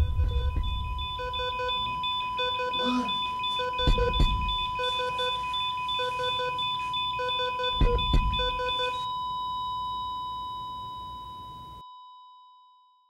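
Electronic alarm-like beeping used as a dramatic sound effect: a steady high tone runs under a pulsed beep that repeats about once a second. Two deep booms come at about four and eight seconds in. The pulsing stops about nine seconds in, and the steady tone then fades out.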